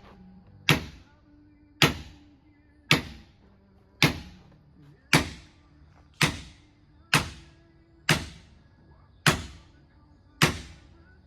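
Heavy hammer blows, ten in all, evenly spaced about one a second, each with a short ringing tail.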